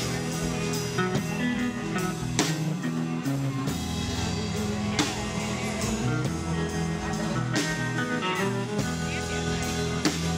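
Live rock band playing: electric guitars and bass over a drum kit, with a cymbal crash every two or three seconds, recorded through a camera's built-in microphone.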